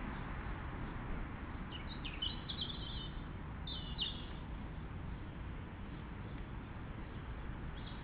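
A bird chirping: a quick run of short high notes about two seconds in, another short burst around four seconds, and a brief call near the end, over a steady background hiss.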